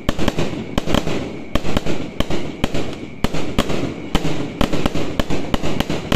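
Aerial fireworks bursting overhead in quick succession, about three sharp bangs a second, with no break between them.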